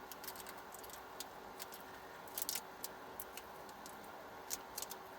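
Scattered light clicks and taps of small objects being handled, bunched in quick clusters about two and a half and four and a half seconds in, over a steady faint hum.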